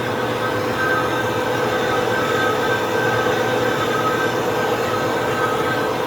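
A metal-working machine tool runs steadily, most likely machining the worn bearing bore of an electric motor end bell so it can be sleeved. Its even mechanical noise carries a steady whine.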